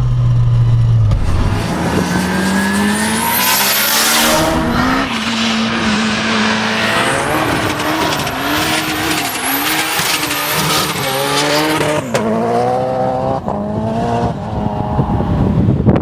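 Ford Escort RS Cosworth doing donuts: the engine is held high and revs rise and fall repeatedly under wheelspin while the tyres squeal continuously. The engine note is steady for about the first second before the revs climb.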